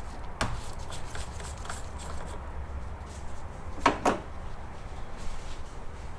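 Sharp clicks and knocks from handling the engine-oil bottle and filler cap while topping up the oil: one near the start and a louder double knock about four seconds in, over a steady low hum.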